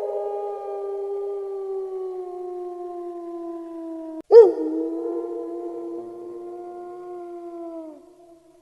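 An animal giving two long howling calls, each starting suddenly and loudly, then held and sinking slowly in pitch. The second begins about four seconds in and fades out near the end.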